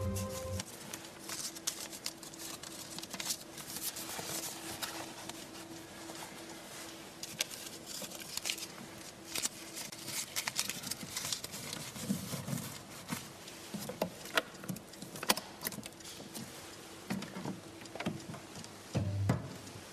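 Small objects clicking and rattling as a hand rummages through a box, in irregular light taps with a few soft knocks near the end.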